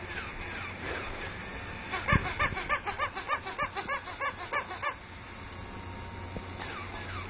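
An animatronic plush bunny toy giving a rapid electronic laugh, about four 'ha's a second for roughly three seconds, while it shakes and flaps its ears.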